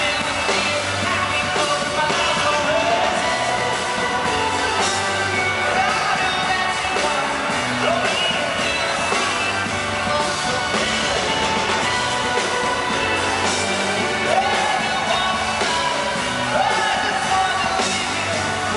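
Indie-pop band playing live, with a male lead vocal sung over keyboards and drums.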